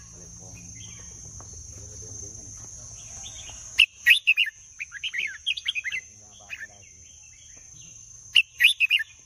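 Red-whiskered bulbul singing: short, loud, bubbly whistled phrases, first about four seconds in, then a run of shorter notes, and another loud phrase near the end. A steady high-pitched whine runs underneath throughout.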